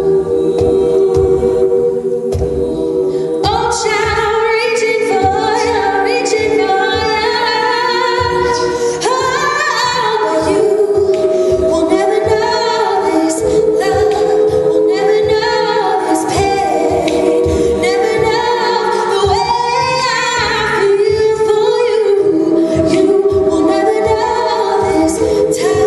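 All-female a cappella group singing a song in several-part harmony through microphones, with a steady vocal-percussion beat underneath.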